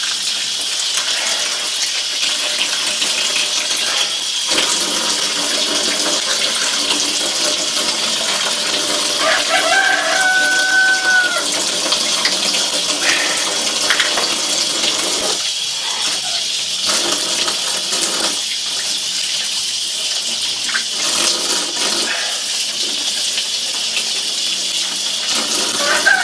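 Tap water running steadily into a stainless steel sink, splashing over a plucked chicken as it is washed by hand. A rooster crows about ten seconds in and again at the very end.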